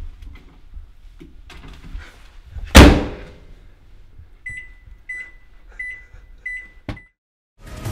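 Over-the-range microwave door slammed shut with one loud bang, then its keypad beeping four times about two-thirds of a second apart as the cook time is keyed in, ending with a short fifth beep and a click.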